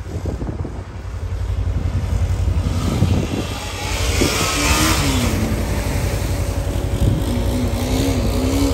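Dirt bike engine revving, its pitch rising and falling as it runs through flood water, with a hiss of water spray when it passes close, about halfway through. A steady low rumble underlies it all.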